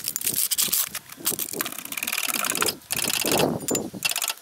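Steel trolley jack rattling and clicking quickly as it is wheeled over gravelly ground, with scrapes and metal clanks as it and an axle stand are set down under a van's front end.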